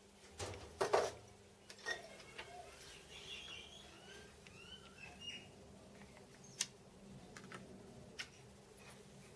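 Scattered clicks and knocks of metal parts and tools being handled, the loudest in the first second. A short run of bird chirps comes between them, about three to five seconds in.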